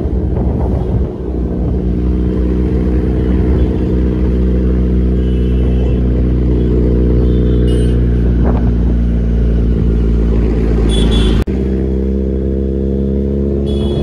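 Kawasaki Z900's inline-four engine with an SC-Project full exhaust, running steadily at low speed in third gear. About eleven and a half seconds in, the sound breaks off for an instant, then carries on at a slightly lower pitch.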